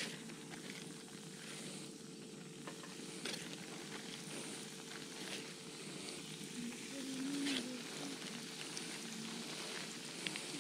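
Breaded wiper fillets frying in hot oil in a skillet: a steady sizzle with scattered pops, more pieces going into the pan as it goes.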